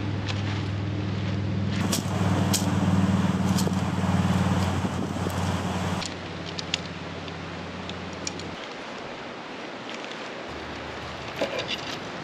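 A steady low motor hum that drops in level about halfway through, cuts out for a couple of seconds and then starts again, with scattered light clicks and clinks.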